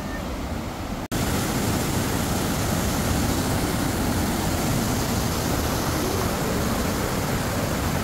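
Waterfall: a steady rush of falling water, louder from about a second in.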